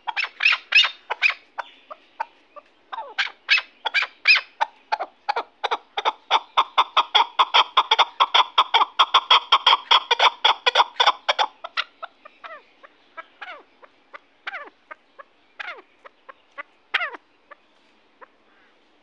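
Chukar partridge calling: a long series of short clucking chuk notes. The notes come fast at first, pause briefly, then build to a dense run of about five a second between roughly six and eleven seconds in. After that they slow to scattered single notes and stop about a second before the end.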